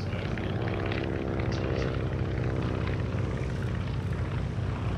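Stinson Reliant's radial piston engine and propeller running steadily in flight, a continuous engine drone as the aircraft passes overhead.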